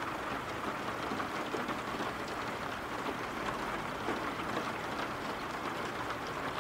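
Steady rain falling: an even hiss flecked with the faint patter of single drops.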